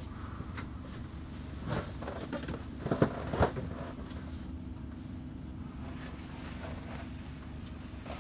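Steady low rumble of an ambulance's engine and road noise heard from inside the patient compartment, with a few short knocks and rattles near the middle.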